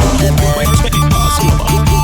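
Background music: an upbeat electronic track with a steady beat, bass and a held synth melody.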